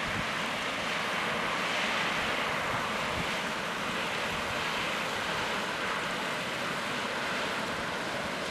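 Volcanic fumarole venting steam in a steady rushing hiss that swells slightly a couple of seconds in.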